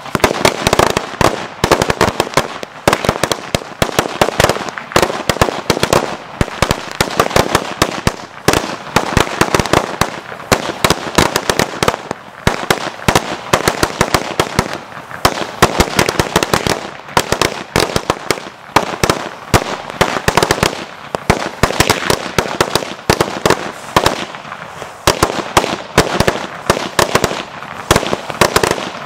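A long homemade string of about 10,000 firecrackers going off in a rapid, continuous stream of bangs.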